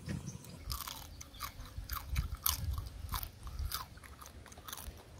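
Close-up eating sounds of a person eating crab curry with the hands: a quick run of wet lip smacks and sucking while chewing crab meat, roughly three a second.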